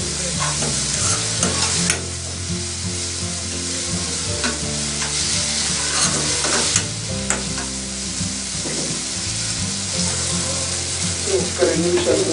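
Chopped onions, green chillies and ginger-garlic sizzling in oil in a frying pan while being stirred with a spatula. Short scrapes and clicks of the spatula against the pan sound now and then over a steady sizzle.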